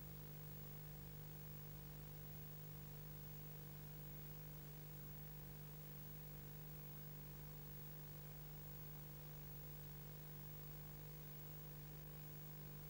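Steady low electrical hum with a faint hiss and nothing else: the tape noise of a silent 8mm film transfer.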